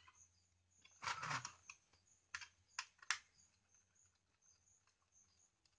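Small clicks and taps of a tool and wire being worked on a switch's screw terminal: a brief rustle about a second in, then three sharp clicks over the next two seconds, then near silence.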